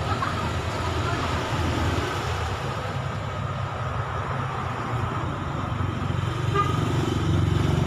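Steady low rumble of a motor vehicle's engine close by, growing louder near the end, with a short horn-like toot about six and a half seconds in.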